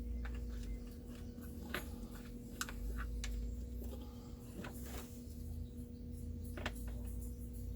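A handful of short, scattered metal clicks and taps as a piston ring compressor and piston are worked into the cylinder of a Stihl 036 chainsaw engine, over a steady low hum.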